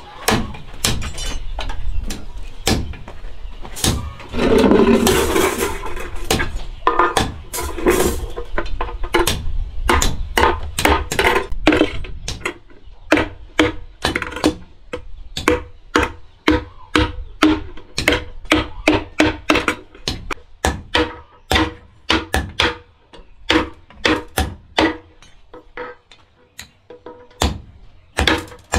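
A tool striking wood repeatedly in a steady rhythm, about two sharp knocks a second, with a louder, noisier stretch around five seconds in.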